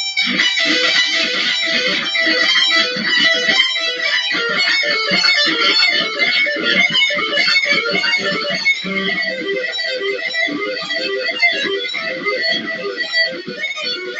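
Electric guitar shredding: fast lead runs of rapid notes played without a break.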